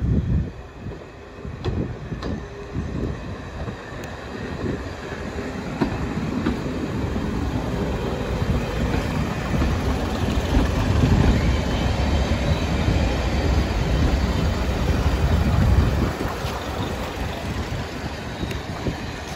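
British Rail Class 108 diesel multiple unit drawing into the station, its underfloor diesel engines and wheels rumbling. The sound grows louder as the cars pass close and drops off about sixteen seconds in.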